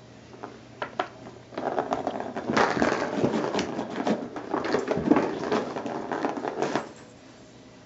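A cat pawing at a Bergan Turbo Scratcher, a plastic ball-in-track toy with a cardboard scratch pad. A few light knocks come first, then from about a second and a half in there is dense rattling and scraping, which cuts off near the end.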